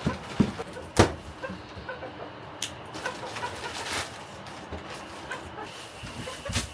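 Silkie chickens clucking softly now and then, with a sharp knock about a second in and a lighter click a little later.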